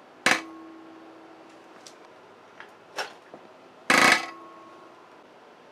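Cummins 12-valve Bosch mechanical diesel injector popping on a hand-lever pop tester at about 3,500 psi. A sharp metallic snap with a short ring comes shortly after the start and a faint click about three seconds in. The loudest sound, about four seconds in, is a brief hissing burst as the injector opens and sprays fuel.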